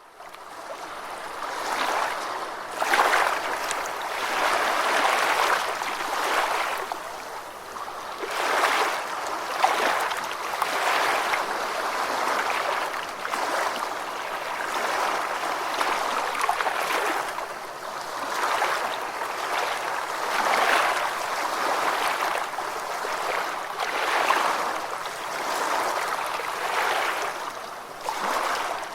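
Gentle ocean waves washing onto a beach: a steady hiss of water that swells and eases every couple of seconds, fading in at the start.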